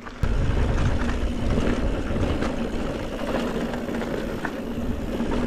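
Mountain bike rolling along a dirt trail: a steady low rumble of tyres and riding noise, with a faint steady hum above it.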